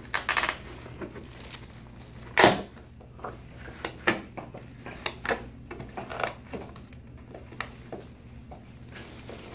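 A hand-held metal cast-removal tool working a split leg cast open: scattered clicks, snaps and cracks of the hard cast and metal, with one loud crack about two and a half seconds in.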